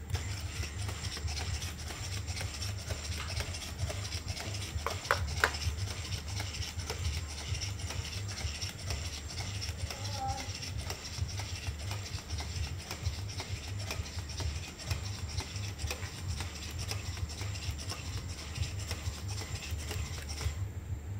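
Stanford Pupper quadruped robot walking on a hard floor: its servo motors whir and buzz while its feet tap in quick, continuous clicks. A brief squeak about five seconds in is the loudest moment.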